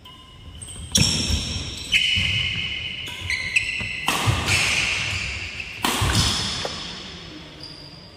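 Badminton rally: rackets striking the shuttlecock about six times, sharp cracks each followed by a high lingering ring. The hits stop about six seconds in.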